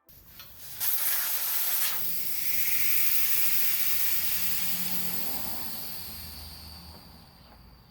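Air hissing out of a motorcycle rear tire through the valve stem with its valve core removed: a loud hiss that starts about a second in and slowly fades as the tire deflates.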